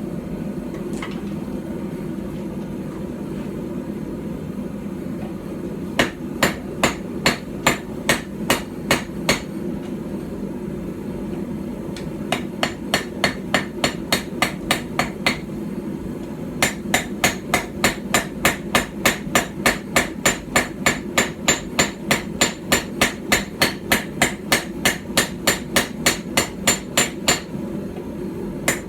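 Small hand-forged hammer of about 12 ounces striking steel on a stump anvil while forging a knife. The sharp blows come in three runs of about three a second, and the longest run starts around 17 seconds in. A steady low hum runs underneath.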